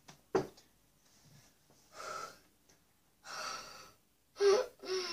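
A girl breathing hard and gasping, about four loud breaths a second or so apart with the loudest near the end, nervous before tasting. A single sharp click comes about half a second in.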